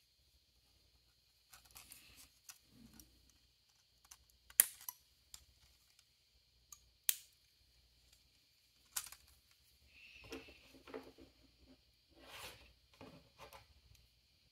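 Sharp plastic clicks and snaps from a 3D-printed print-in-place laptop stand as its parts are cut and flexed free, the loudest about four and a half seconds in. Scraping and rattling of the plastic frame follows as it is handled.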